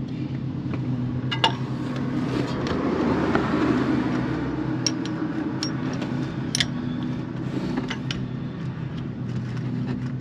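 Steady drone of a lawn mower engine running, swelling louder from about two to five seconds in. Over it come a few sharp metallic clinks of a wrench against the shock's top mounting hardware.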